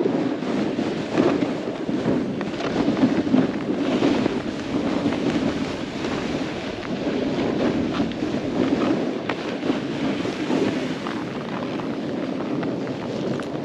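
Wind rushing over the microphone while a snowboard slides and scrapes through snow at speed, a steady rush with frequent short scratchy rasps from the board.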